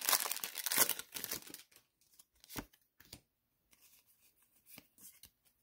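Foil wrapper of a Pokémon booster pack crinkling and tearing as it is pulled open, then a few soft flicks of the trading cards as they are slid out and handled.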